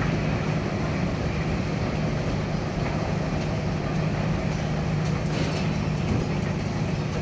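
Steady low mechanical hum over a constant rumble of city traffic, with no change in level.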